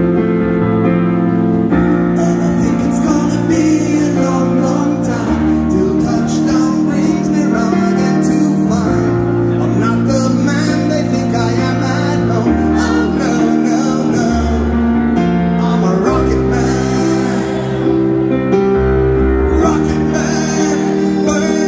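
Live male vocalist singing a slow song into a microphone, accompanied by grand piano, with sustained low notes changing every second or two.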